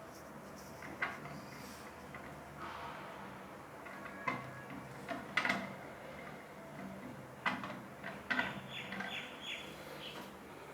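Scattered clicks and light knocks of a shower head and its fittings being handled and unscrewed, with a short run of quick ticks about eight or nine seconds in.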